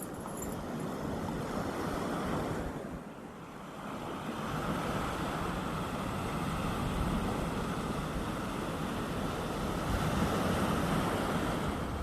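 Calm sea with small waves washing onto the beach: a steady wash of surf that eases briefly about three seconds in, then builds again.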